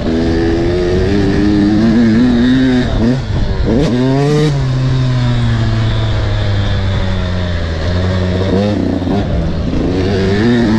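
300 cc two-stroke enduro motorcycle engine being ridden and revved, its pitch climbing sharply about 4 seconds in and again near the end, holding steadier between. It is being run hard to blow out a sour, loaded-up two-stroke.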